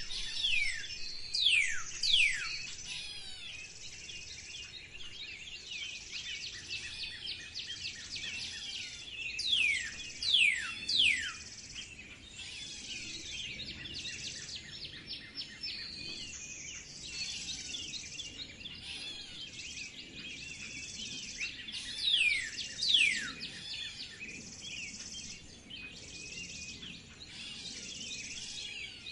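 A dense chorus of many birds chirping and calling. Three times, about a second in, about ten seconds in and about twenty-two seconds in, one bird stands out with a short run of loud, sharply falling whistles.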